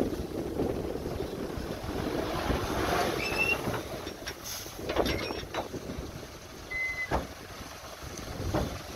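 Heavy machine's engine running under gusty wind on the microphone. Several sharp knocks come in the second half, and there are two brief high-pitched chirps.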